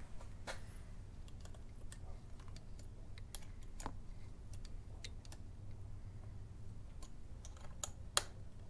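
Small, scattered metal clicks and taps of an Allen key and lever hardware being worked by hand at a motorcycle handlebar lever mount, with one sharper click near the end, over a steady low hum.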